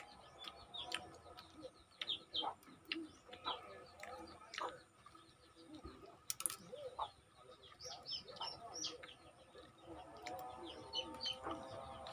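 Small birds chirping in quick, short calls, busiest about two-thirds of the way in, with scattered sharp clicks.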